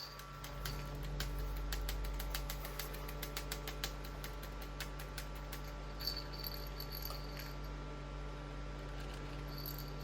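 Mini desktop fan running with a steady low hum. A quick run of small clicks comes in the first few seconds, and a few short high chirps come around six seconds and again near the end.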